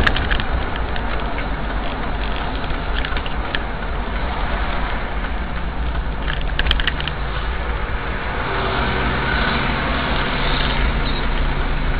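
Steady engine and road noise of a car driving, heard from inside the cabin, with a few light clicks. A steadier low engine hum sets in about two-thirds of the way through.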